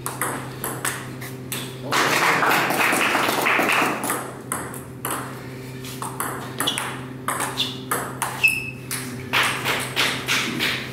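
Table tennis ball clicking off the paddles and the table in quick, irregular ticks through rallies. A loud rush of noise lasts about two seconds, starting about two seconds in.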